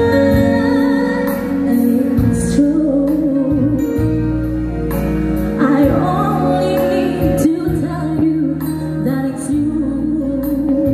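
Live band playing amplified music, with women singing lead over electric guitar.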